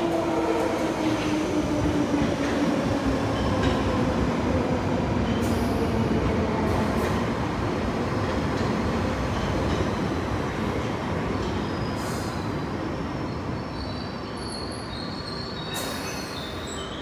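London Underground 1973 Stock tube train pulling into the platform from the tunnel, its running rumble filling the platform, with a whine that falls in pitch over the first few seconds. High squealing sets in near the end as it slows to a stop.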